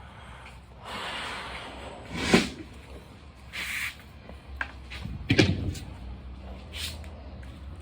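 Knocks and clunks of things being handled, two louder ones about two and five seconds in, with a few short rubbing sounds between them.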